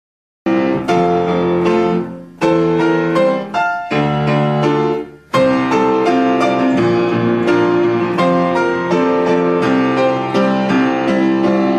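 Piano music: chords and single notes played in phrases. It starts about half a second in after a moment of silence, with short breaks between phrases near two, four and five seconds.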